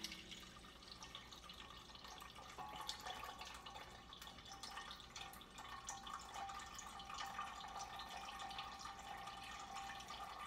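Elderberry juice trickling and dripping from a fruit press into a stainless steel pot, faint, with many small scattered ticks.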